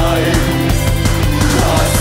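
Gothic rock music in an instrumental passage with no vocals: a driving, repeating bass line under held, ringing chords.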